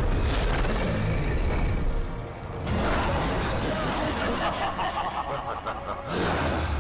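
Film-teaser soundtrack: dramatic music over heavy, rumbling sound effects. It dips briefly about a third of the way in and swells again near the end.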